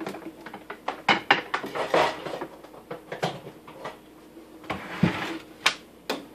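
Irregular knocks, clunks and short scrapes as a Vitamix blender's motor base is moved on the countertop and its power cord handled.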